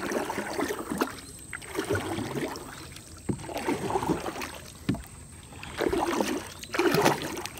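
A wooden paddle stroking through river water beside a wooden boat, a swish and splash every second or so, with a few sharp knocks in between.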